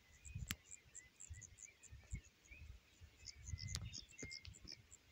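Faint meadow ambience of crickets chirping in short, high, irregular pulses, with a few soft bird calls. A low rumble on the microphone and two sharp clicks, about half a second in and near four seconds, sit beneath it.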